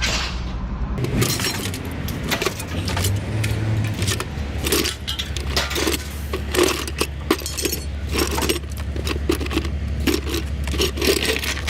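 Pieces of scrap metal clanking and rattling as they are thrown by hand onto a scrap pile, many metal strikes in quick succession. A steady low engine hum runs underneath.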